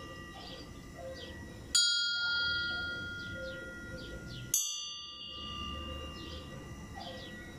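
Bell tolled as a death knell (toque de difunto): single strikes about three seconds apart, twice here, each ringing on and slowly fading.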